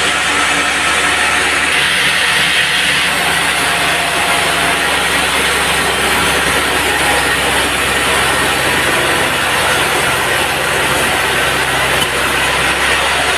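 Band sawmill running steadily: a continuous mechanical din with a low engine hum beneath a hissing cutting noise.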